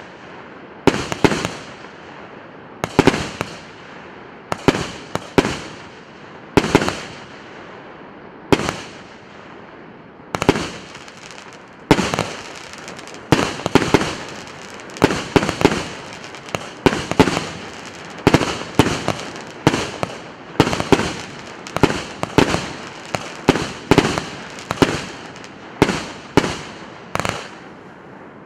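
An 88-shot 1.2-inch consumer fireworks cake firing shot after shot, each a sharp bang with a short crackling tail. The shots come about every second or two at first and quicken to one or two a second in the second half.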